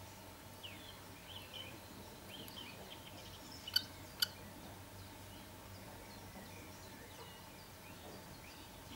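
Faint, high bird chirps and peeps during the first three seconds or so, then two sharp clicks about half a second apart around four seconds in, over a steady low hum.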